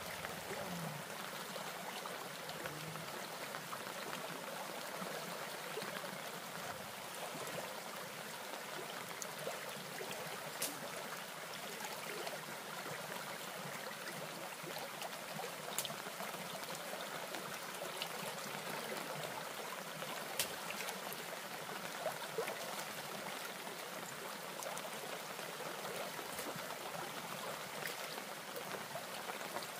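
Steady rush of running water from a stream, with a few faint clicks now and then.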